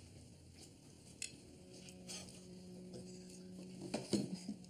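Faint clinks and knocks of cutlery and dishes on a dinner table, a little louder about four seconds in. A low steady hum comes in after about a second and a half.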